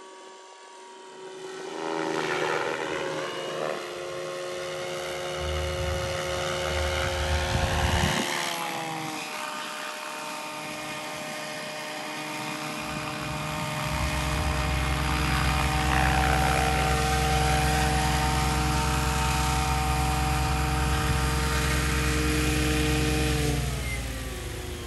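Gaui R5 Speed electric RC helicopter, with a brushless motor driving geared main and tail rotors, flying: a steady motor-and-gear whine over the chop of the rotor blades, growing louder as it comes in low and close. About halfway through a low rumble joins in, and near the end the whine falls in pitch as the rotor slows with the helicopter on the ground.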